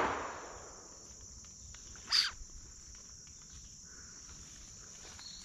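The echo of a 12-gauge shotgun shot rolling away over about a second, then a brief sharp high sound about two seconds in. Insects buzz steadily throughout.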